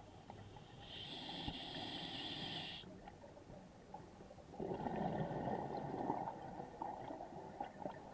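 Scuba diver breathing underwater through a regulator: a hissing inhale for about two seconds, then a burst of exhaled bubbles burbling for a couple of seconds.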